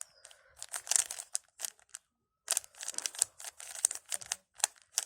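3x3 Rubik's cube being turned quickly by hand: rapid, irregular plastic clicking and clattering of the layers as the moves orient the last layer. A short silent break comes just after two seconds in.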